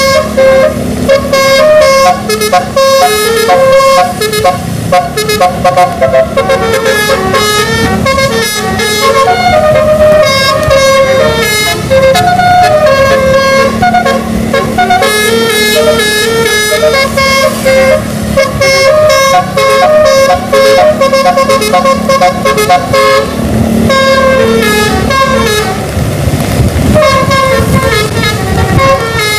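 Bus musical air horn (telolet) playing a fast melody of short stepped notes, almost without pause, over the bus's engine rumble. Near the end the tune thins out as a louder rumble swells.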